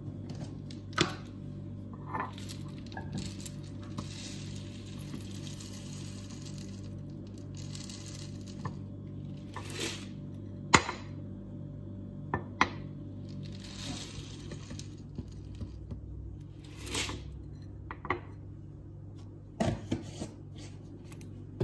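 Rolled oats being put into a glass bowl: sharp clinks of glass and utensils, the loudest about eleven seconds in, with short stretches of rustling and pouring, over a steady low hum.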